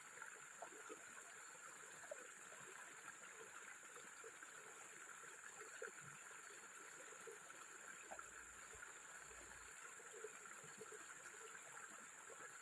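Faint, steady outdoor background hiss with a constant high-pitched band and no distinct events; a brief low rumble about eight seconds in.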